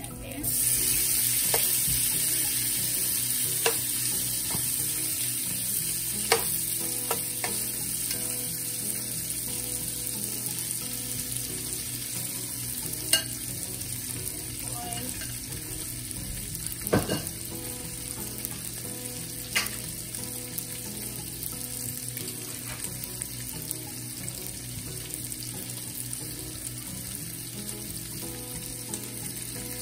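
Thin-sliced ribeye steak with onion and mushroom sizzling loudly in hot butter and oil. The sizzle starts suddenly about half a second in as the food goes into the pan, then fries steadily and slowly quiets as the meat cooks. A few sharp knocks of a utensil against the pan come while it is stirred.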